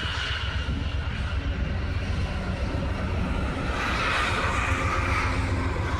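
Amtrak passenger train passing, a steady low rumble, with a hissing wheel-on-rail noise that swells about four seconds in.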